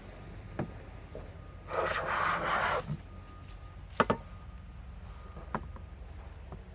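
A hand plane taking one stroke across a wooden board, a hiss lasting about a second, near two seconds in. A few sharp knocks follow, the loudest pair about four seconds in.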